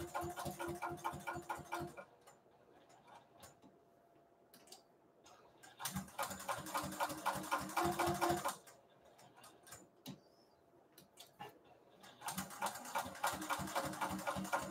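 Juki sewing machine stitching in three bursts of rapid, even clicking over a motor hum, with pauses of a few seconds between them that hold only scattered clicks.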